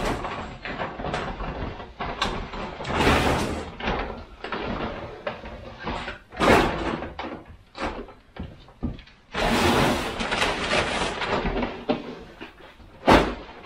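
Workshop handling noise: things being shifted, scraped and set down on a workbench, with irregular knocks and clatter and one sharp knock near the end.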